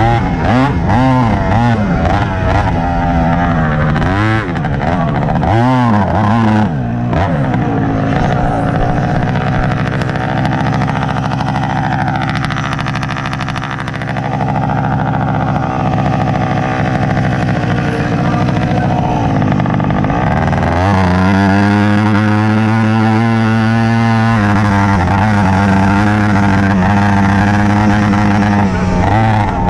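Tomos automatic moped's small two-stroke engine racing over a dirt motocross track, its revs rising and falling quickly over the bumps at first, lower and steadier through the middle, then climbing about twenty seconds in to a steady high note held to full throttle.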